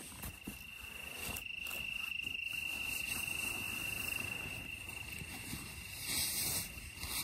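Crickets trilling, one steady high-pitched trill, with nylon hammock and sleeping-bag fabric rustling close by, loudest about six seconds in.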